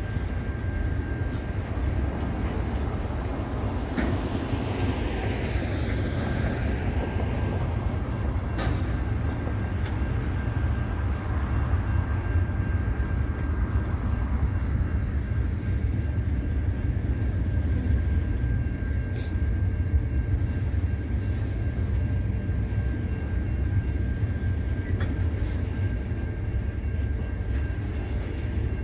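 Container freight train wagons rolling past over a level crossing: a steady, continuous low rumble, with a thin steady high tone above it. About four to eight seconds in, a broad whoosh rises and falls over the rumble.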